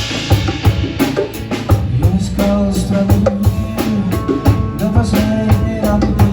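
Live band playing an instrumental passage between sung lines, with a steady drum-kit beat over a held bass line.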